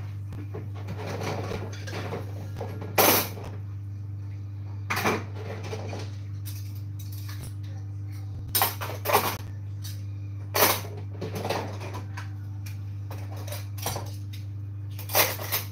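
Kitchen clatter of pans and utensils while cooking: scattered sharp knocks and scrapes, the loudest about three, ten and fifteen seconds in, over a steady low hum.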